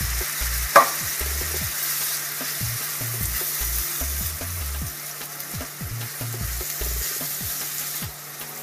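Chili base of browned meat, spices and chopped tomatoes sizzling in a frying pan while it is stirred, with scattered light scrapes and one sharp clack about a second in.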